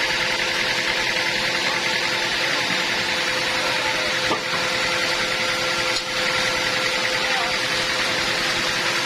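Sawmill machinery running steadily with an even mechanical hum, dipping briefly about four and six seconds in.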